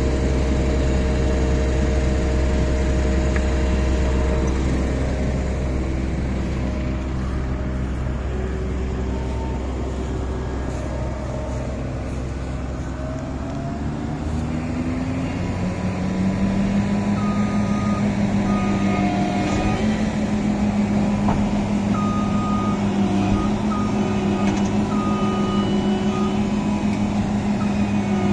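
Heavy farm diesel engine running steadily, then revving up about halfway through and holding at higher revs. Over it, an electronic warning beeper sounds in short repeated beeps.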